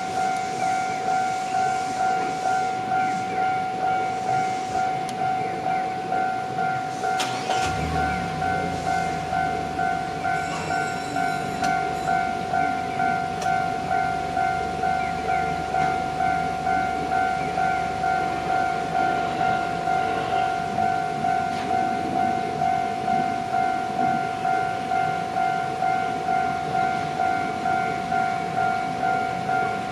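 Level-crossing warning bell ringing in an even, rapid ding-ding rhythm, while a Shizuoka Railway electric train passes over the crossing, its low rumble and wheel noise starting about seven seconds in and dying away around eighteen seconds.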